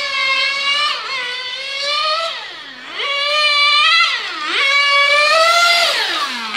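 Nitro-powered RC car engine screaming at high revs, its pitch repeatedly dropping sharply and climbing back as the throttle is lifted for corners and opened again on the straights, about four or five times.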